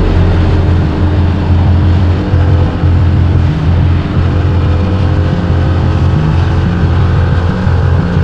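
Motorcycle engine running steadily under way, its pitch rising slowly.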